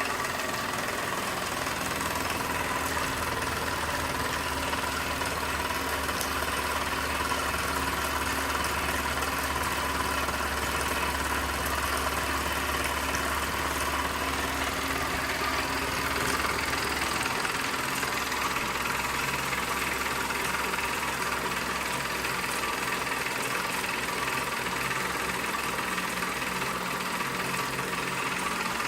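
Vintage tinplate toy steam engine running steadily, driving a model accessory. A low hum under it drops away about two-thirds of the way through.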